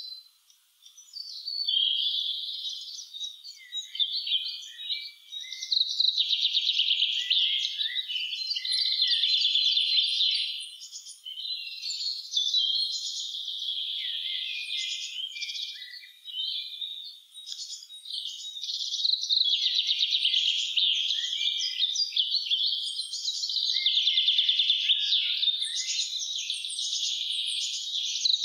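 A spring chorus of many songbirds singing at once: overlapping high-pitched songs of rapid notes and chirps, nearly continuous after a brief lull about a second in.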